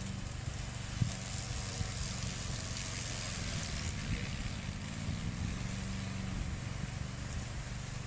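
Black Shark 800 remote-control slope mower's 764 cc two-cylinder gasoline engine running steadily under load as the machine mows into tall, dense reeds. There is a sharp knock about a second in.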